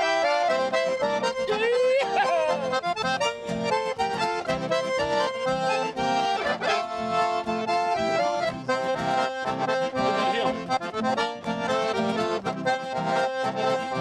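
Instrumental intro of a traditional gaúcho dance tune, led by a piano accordion playing the melody over a bass line and a steady, bouncing beat.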